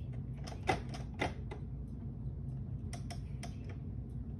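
Keys being tapped in two short runs, a few sharp clicks about a second in and again around three seconds in, over a steady low hum.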